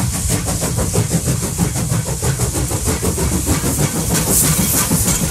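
Steam locomotive running at speed: fast, even chuffs from the exhaust, several a second, over a low rumble of the train, with a louder hiss of steam about four seconds in.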